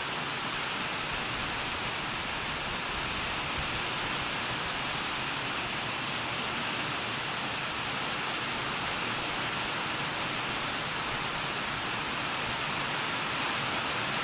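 Heavy tropical downpour, a dense steady hiss of rain that does not let up.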